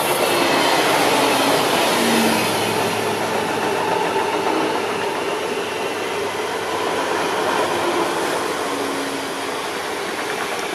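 A DB class 440 electric multiple unit passing close at speed: a steady rush and rumble of wheels on rail, with a faint electric whine from the motors.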